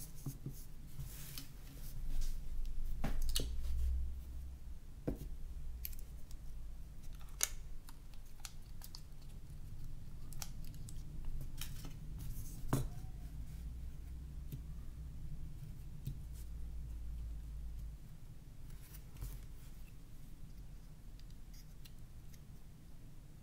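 Scattered sharp clicks and taps of small plastic and metal Nokia N91 phone parts being handled and fitted together, with stretches of low rumble.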